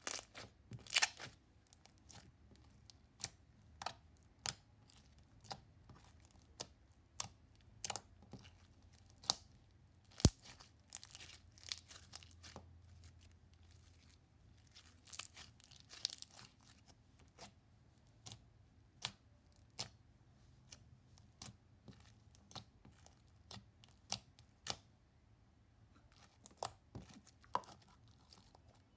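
Slime being played with by hand, making irregular sharp pops and crackles, with a few short denser crackly stretches and one louder pop about a third of the way in.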